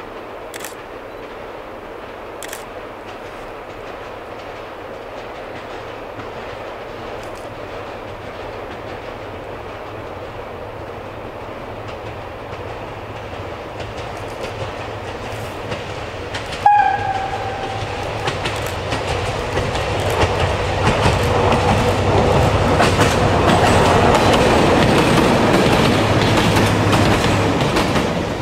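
Diesel multiple-unit railcar approaching on a single track, its running noise growing steadily louder. It gives one short horn blast about 17 seconds in, then passes close by with its wheels clattering over the rail joints.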